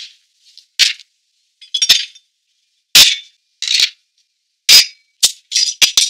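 Glass beer bottles being handled in a metal bottle carrier: about eight short, sharp clinks and knocks at uneven intervals, several with a dull knock against the table beneath them.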